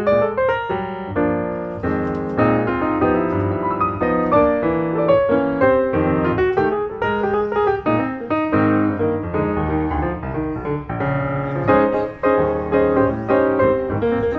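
Background piano music, a busy run of short notes with no other sound over it.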